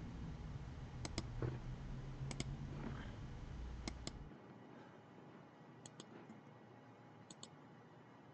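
Computer mouse clicking in quick pairs, five double-clicks about a second and a half apart, over a low hum that stops about four seconds in.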